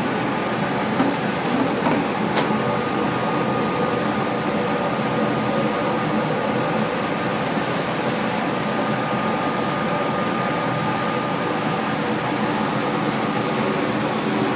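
Steady machinery noise of a steam boiler plant. A short click comes about two seconds in, then a thin steady whine joins it until near the end.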